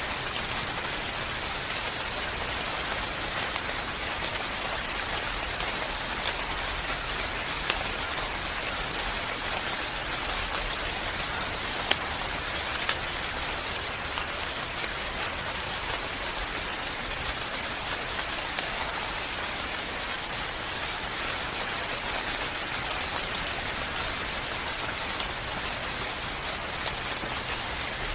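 Steady rain falling and pattering on a surface, an even hiss with scattered sharper drop hits.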